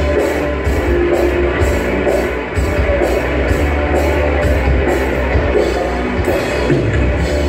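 Rock music played loud through a PA sound system, with electric guitar, a drum kit hitting cymbals about three times a second, and heavy bass.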